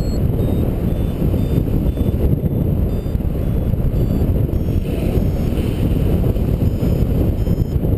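Airflow buffeting the microphone of a camera carried on a paraglider in flight: a steady, loud, low rushing of wind with no breaks.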